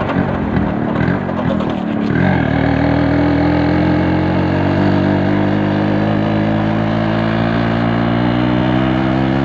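Yamaha RX135's two-stroke single-cylinder engine running under way, uneven for the first couple of seconds and then settling into a steady drone at constant speed.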